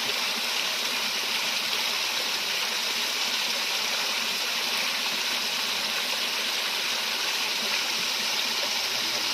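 Water pouring steadily down a small homemade waterfall, an even, unbroken rush of falling and splashing water.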